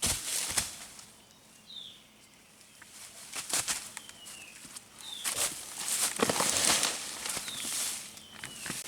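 Rustling and scuffing, like footsteps or handling in dry vegetation, in uneven bursts, with a bird giving short falling chirps several times.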